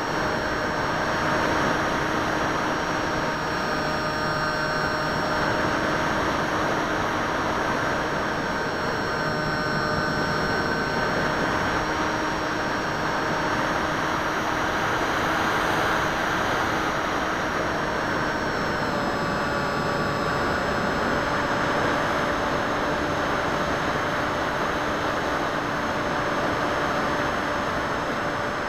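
Electric motor and propeller of a Bixler 2 RC plane running steadily in flight, heard from the plane's own onboard camera. It gives a whine of several steady tones that shift slightly in pitch about 19 seconds in, over a hiss of air rushing past.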